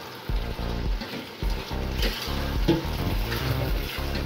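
Spatula stirring raw mutton liver pieces through onion-tomato masala in a hot pan, with a light sizzle of frying, over background music with a steady beat.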